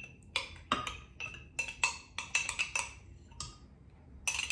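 Metal spoon tapping and scraping against a cup as ice cream is spooned into a blender jug: a quick, irregular run of sharp clicks and taps, some ringing briefly, with a short pause near the end.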